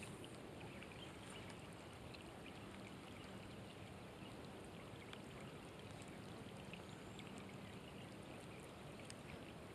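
Faint light rain pattering on a pond's surface: a soft, even hiss dotted with tiny drop ticks.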